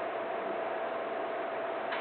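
Steady background hiss with a faint constant hum, and a faint click near the end.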